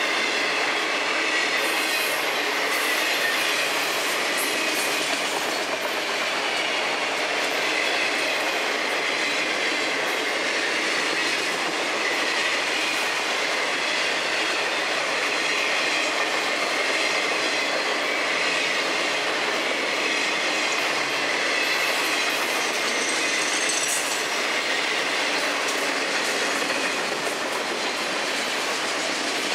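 Freight train of enclosed autorack cars rolling past at a steady speed: the continuous noise of steel wheels on rail, with a faint high squeal from the wheels.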